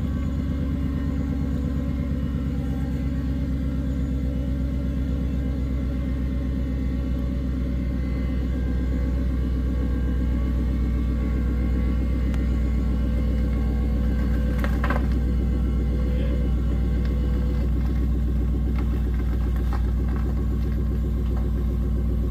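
Custom 1956 Ford F100 pickup's engine running at a low, steady idle as the truck creeps out of its trailer and down the ramp. There is one short knock about two-thirds of the way through.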